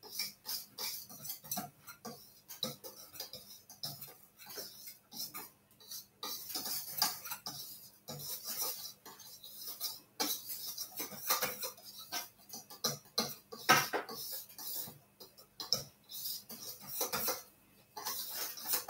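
Hand whisk scraping and clinking against a stainless steel mixing bowl as dry ingredients (flour, cocoa powder, salt and baking powder) are whisked together: a quick, irregular run of metal taps and scrapes.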